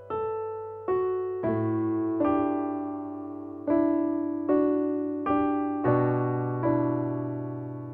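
Background music: a slow, gentle piano piece, single notes struck roughly every second and left to fade over held low notes.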